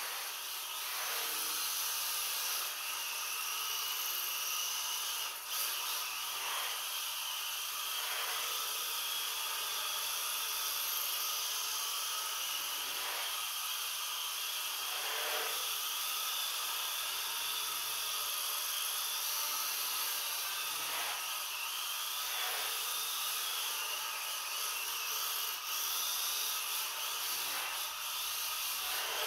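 Small electric motor of a mini RC drift car (XRX DPA RWD) whining as the car drifts, the high whine rising and falling slightly as the throttle is fed in and eased off.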